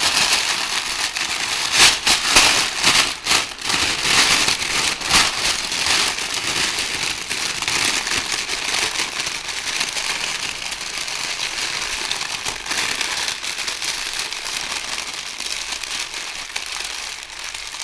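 Paper crumpled and crinkled by hand as a foley imitation of a fire crackling, dense with sharp snaps in the first few seconds, then gradually thinning and fading as the fire is made to die down.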